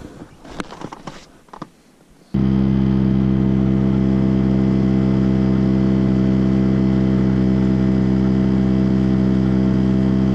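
Splashing and small knocks at the side of an inflatable boat, then about two seconds in a small outboard motor takes over abruptly, running at a steady, unchanging speed as the boat cruises.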